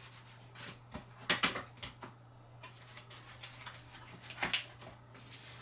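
Scattered light taps and rustles of cardboard and paper as a K-pop album box is searched by hand, with a few louder knocks about a second and a half in and again near the end, over a steady low hum.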